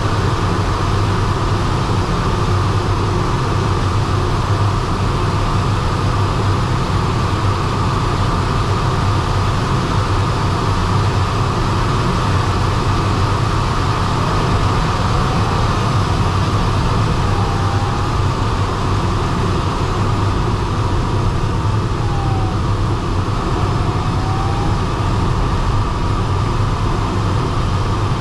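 Steady rush of air around the DG303 glider's cockpit in flight: a loud, even noise, heaviest in the low end. Partway through, a faint tone wavers up and down in pitch.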